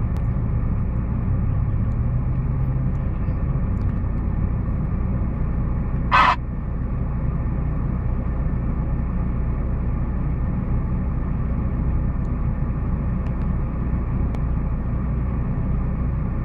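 Off-road 4x4's engine and tyres heard from inside the cab while it drives slowly over rough ground: a steady low rumble. About six seconds in, a brief loud noise cuts through it.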